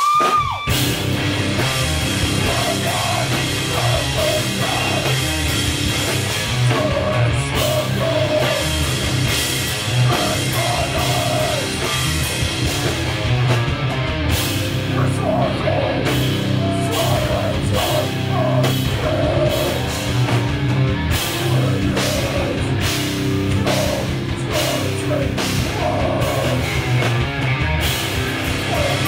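Live heavy metal band playing at full volume: distorted guitars, bass and a pounding drum kit, with vocals at times. The whole band comes in together right at the start after a brief pause.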